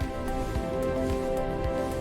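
Background music of sustained tones with a low pulse about twice a second.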